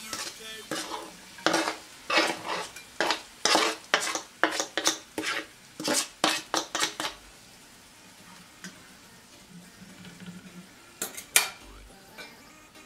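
A fork scraping across a plastic tray and clinking against a small metal pan as sliced peppers are pushed into it, a quick run of clinks and scrapes for about seven seconds. After a quieter stretch come two sharp metal clinks near the end as the copper lid is handled.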